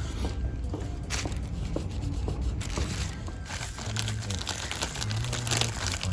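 Rustling, crinkling and light clicks of hands handling brake caliper parts, over background music whose bass notes come in more strongly about two-thirds of the way through.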